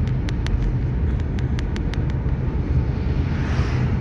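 Steady low rumble of a car's engine and tyres heard from inside the cabin while driving at road speed, with faint light clicks and a brief swell of hiss near the end.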